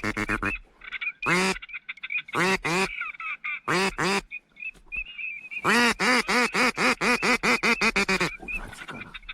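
Ducks quacking in separate groups of calls, ending in a long run of quick quacks from about six seconds in to just past eight, over a faint high twittering.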